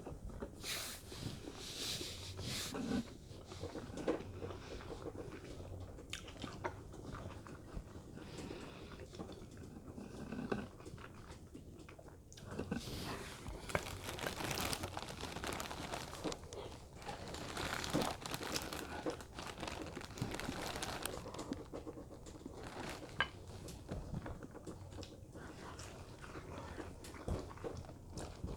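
A person eating close to the microphone: biting and chewing food, with irregular small clicks and crackles.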